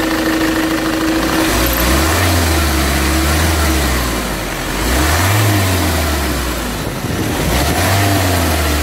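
Ford Transit van engine running and being revved up and let back down about three times. It has an unexplained knock, which the owner suspects comes from a broken crankshaft pulley.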